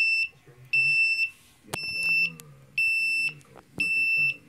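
Walkera F210 quadcopter beeping steadily, a high-pitched beep of about half a second repeating once a second: the quad is not bound to its transmitter after its main board was replaced. A sharp click sounds about two seconds in.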